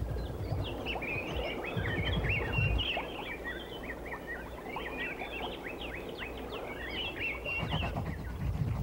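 A flock of many birds chirping at once, a dense chatter of short calls that stops shortly before the end, over a low rumble.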